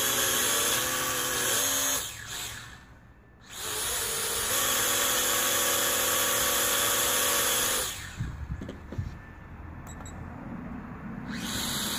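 Toy quadcopter's small electric motors and propellers whirring at high speed: a burst of about two seconds, a short pause, then about four seconds more that steps up in pitch partway through. After a break with a few handling bumps, a softer whir starts near the end.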